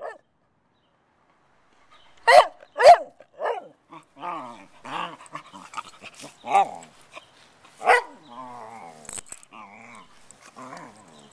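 English springer spaniel puppy barking: three sharp barks about two seconds in. It follows with a string of wavering, pitched vocal noises and another bark near the end.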